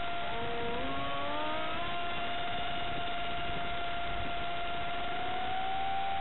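Electric motor and propeller of a Stryker RC flying wing whining in flight: a steady high whine, with several tones rising in pitch during the first two seconds.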